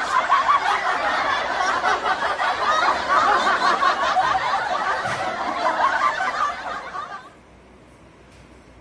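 Laughter, dense and chattering, that stops about seven seconds in.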